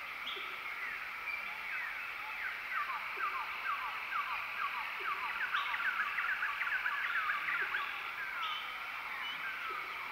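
Forest ambience: many quick, falling chirps, busiest midway, over a steady high hum.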